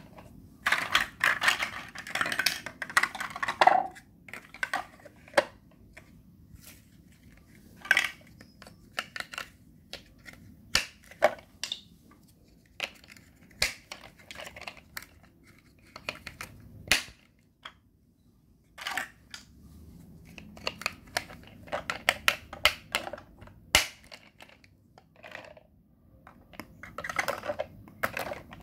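Large plastic Mega Bloks building blocks clattering and knocking as they are handled and pressed together, in irregular clicks, with dense rattling through the pile in the first few seconds and again near the end.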